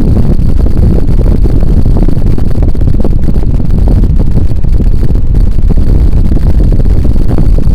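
Casablanca Delta II ceiling fan running, its airflow buffeting the microphone in a loud, steady low rumble.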